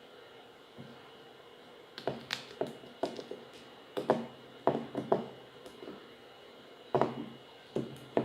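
About a dozen sharp clicks and knocks in irregular clusters, each with a short ring: a perfume bottle and its sprayer parts being handled during a sprayer seal repair. They begin about two seconds in, pause briefly past the middle, and come again near the end.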